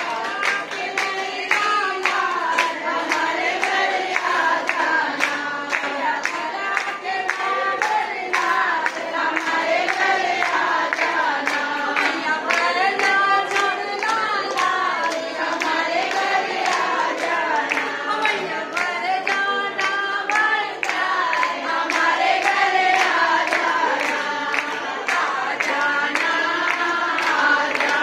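A group of women singing a devotional bhajan together in unison, keeping time with steady hand claps about twice a second.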